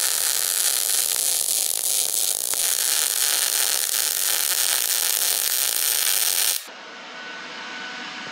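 Wire-feed (MIG) welder arc crackling and hissing steadily while laying a stitch weld on the preheated cast-steel housing of a Superduty Dana 60 axle. The arc cuts off suddenly about six and a half seconds in.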